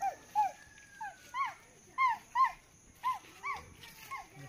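A dog whimpering in short, high yelps that rise and fall, mostly in pairs about once a second.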